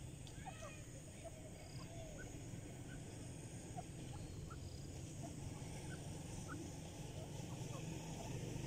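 Birds calling softly: many short, scattered chirps over a steady low rumble.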